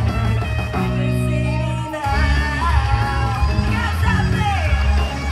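Live J-rock band playing: a female lead vocal sings over distorted electric guitars, bass and drums. About a second in the band holds a chord, then it drives on again at about two seconds.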